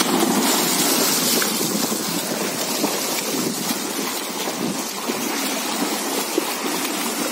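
Several swimmers splashing hard as they swim freestyle down a pool: a steady rush of churning water.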